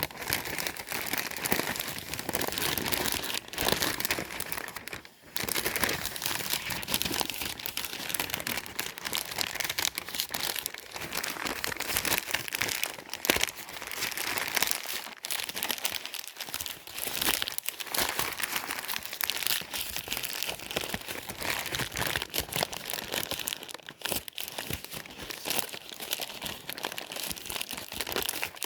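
Newspaper being scrunched and crumpled by hand: dense, nearly continuous crackling and rustling, with a brief pause about five seconds in.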